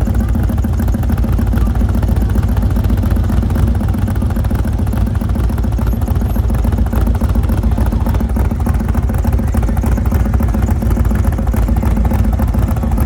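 Rat rod pickup's engine idling through open exhaust headers: a loud, steady low rumble with a fast, even pulse, never revved.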